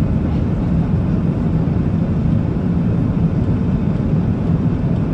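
Steady low rumble of an Airbus A380 airliner, unchanging in level, with most of its sound in the low range and a steady hum underneath.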